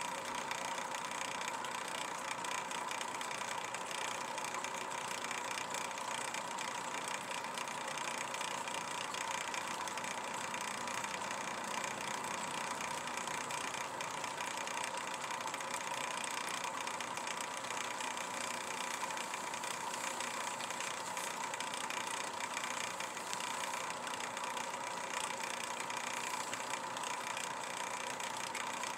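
A steady machine hum with a constant pitched note, unchanging in level.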